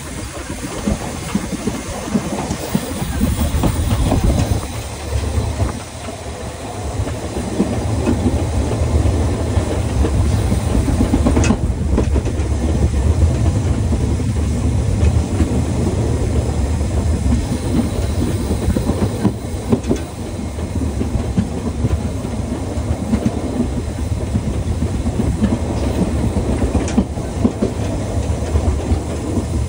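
Narrow-gauge steam train running along the track: a steady low rumble with a few sharp clicks, the wheels passing over rail joints.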